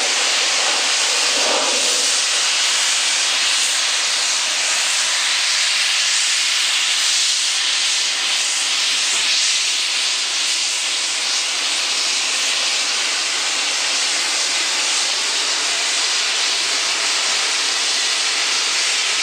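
Garratt steam locomotive (NRZ 16A class, 2-8-2+2-8-2) hissing steam loudly and steadily, with no exhaust beat.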